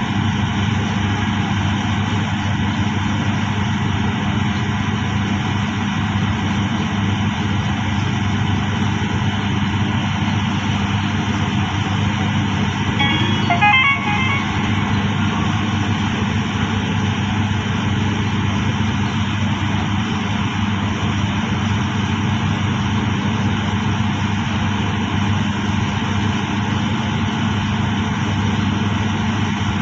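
Steady drone of the hydraulic drilling rig's heavy machinery running, with a brief high squeak about halfway through.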